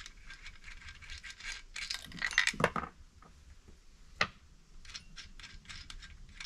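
Metal chainsaw chain and parts clinking and rattling as they are handled and fitted onto the saw, a run of small clicks with the loudest clatter about two and a half seconds in and a sharp single click about four seconds in.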